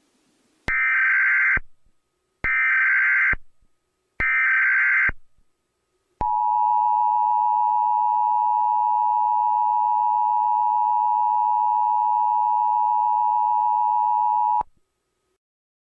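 Emergency Alert System broadcast: three short warbling bursts of SAME header data, each about a second long, then the steady two-tone EAS attention signal, held for about eight seconds before it cuts off. This is the standard lead-in to an emergency alert message, here a civil danger warning.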